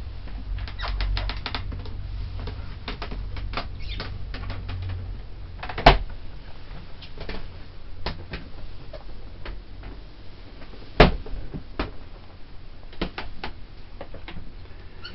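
Handling noise from a handheld camera: irregular light clicks and knocks, with two sharper knocks about six and eleven seconds in and a low rumble during the first five seconds.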